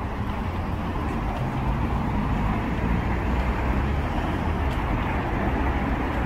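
Steady city traffic noise: a continuous low rumble of vehicle engines along a busy street.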